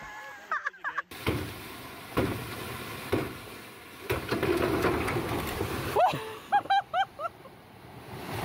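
Water gushing and rushing out of a burst above-ground swimming pool, starting just after a second in and growing heavier about four seconds in. A person's voice calls out in several short yells near the end.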